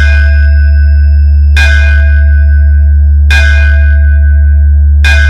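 DJ sound-check track: a loud, steady deep bass hum with a bell-like chime struck about every second and three-quarters, three strikes, each ringing on.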